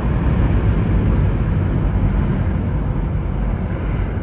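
Boeing 777X in a steep climb overhead, its two GE9X turbofans giving a steady, deep jet rumble.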